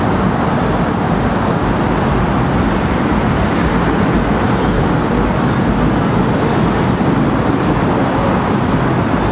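Steady road traffic noise, an even wash with no single vehicle standing out.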